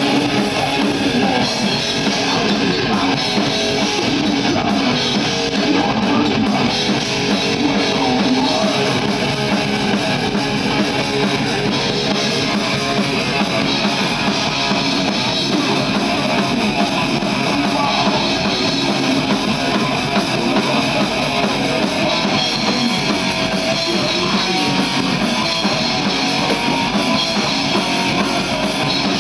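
Heavy metal band playing live at full volume: distorted electric guitars over drums, a dense, steady wall of sound with no pauses.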